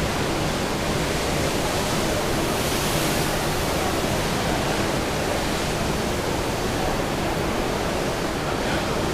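Steady rushing of sea water and wind around a ship under way, an even roar that does not change.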